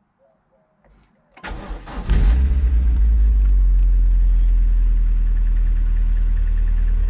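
MG TF's K-series four-cylinder engine being started: the starter cranks briefly about a second and a half in, the engine catches about two seconds in and then settles into a loud, steady idle.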